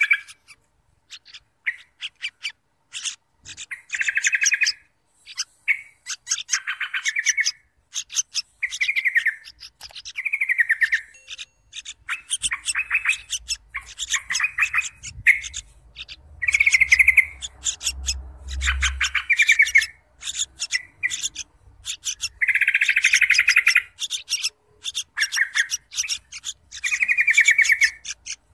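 Yellow-vented bulbul nestlings begging while a parent feeds them at the nest: short, buzzy chirping bursts repeated every second or two. A faint low rumble sits underneath about two-thirds of the way through.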